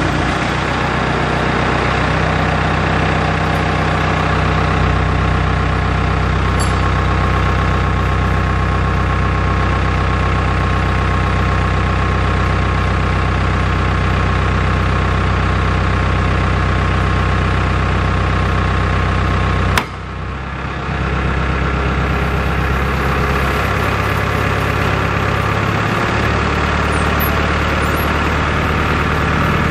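Heavy engine, most likely the crane working the grab bucket, idling steadily. There is one sharp click about two-thirds of the way through, followed by a brief dip in the sound.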